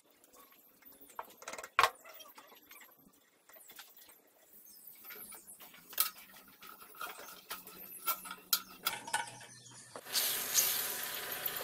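Scattered metal clicks, taps and light scraping of hand tools and parts on an old bench drill press head being dismantled, with one sharp click about two seconds in. Near the end a louder, steady noise sets in.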